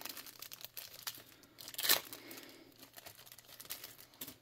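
Plastic wrapper crinkling and tearing as a trading card is worked out of it, a run of small crackles with one louder rustle about two seconds in.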